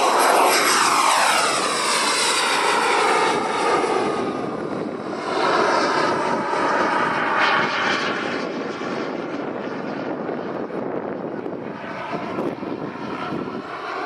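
JetCat 160 turbine of a Skygate Hawk model jet whining in flight, its pitch dropping as it passes low in the first couple of seconds. The sound eases, swells again around the middle as the jet comes round, then eases off.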